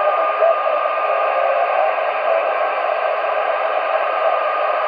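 CB radio on channel 19 AM, heard through its external speaker, giving out steady static hiss, with a few faint traces of the distant station's voice near the start. The far signal is fading into the noise.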